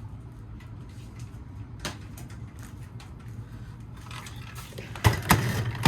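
Plastic fire alarm devices being picked up and handled: scattered clicks and knocks over a steady low hum, with a few loud knocks near the end.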